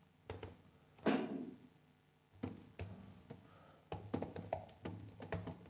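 Computer keyboard keys tapped while typing a word: scattered keystrokes, then a quicker run of them from about four seconds in.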